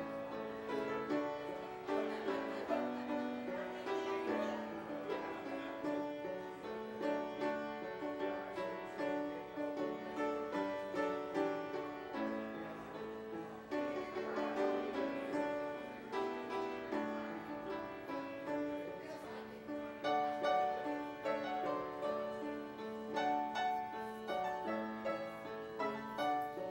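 Slow instrumental piano music, chords and melody notes each held for about a second.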